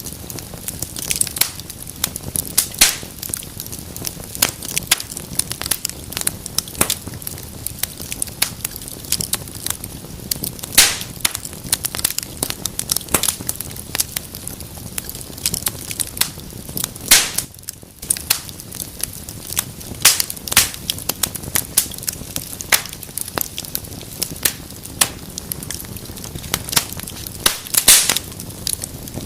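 Wood fire in a fireplace crackling: a steady hiss of burning with irregular sharp snaps and pops, a few louder ones among them.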